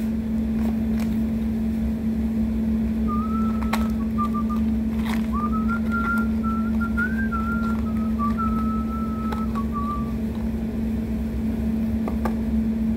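A person whistling a short wavering tune over a steady low hum. A couple of light clicks come from plastic utensils and a sauce container.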